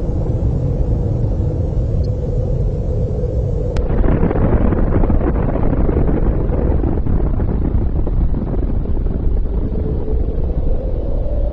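Explosion rumble: a long, deep, continuous roar over a steady low hum, turning harsher and hissier about four seconds in.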